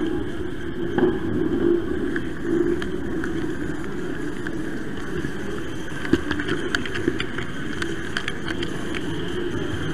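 Model train running along its track, heard from on board: a steady, slightly wavering motor and wheel rumble with scattered sharp clicks in the second half.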